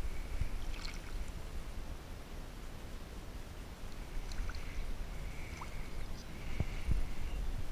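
Water sloshing and small clicks and thumps as a landing net holding a small sturgeon is handled at the bank and lowered into the water, over a low rumble of wind on the microphone.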